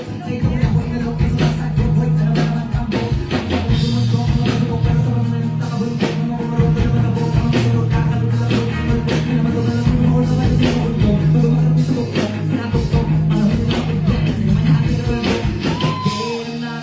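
Live hip-hop performance through a concert sound system: a loud, bass-heavy beat with a regular pulse, and a rapper's voice on the microphone over it.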